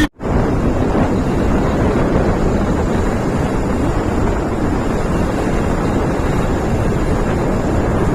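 Steady wind noise buffeting the microphone, a loud, even rush heaviest in the low end. It drops out for a moment right at the start.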